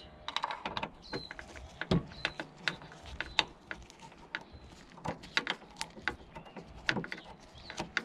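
Irregular small metallic clicks and ticks of a 4 mm Allen key being worked at an angle through an access hole in a car door's edge, turning out the Allen bolt that holds the door handle's end piece.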